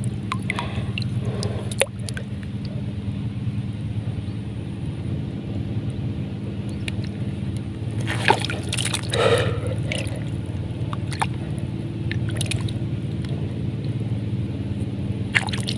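Hands squelching and splashing in wet mud and shallow water while digging into an eel burrow, with louder sloshes about eight and nine seconds in. A steady low engine drone runs underneath.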